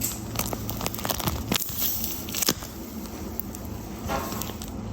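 A handmade paper squishy being squeezed and handled, its taped paper shell crinkling and crackling in irregular bursts.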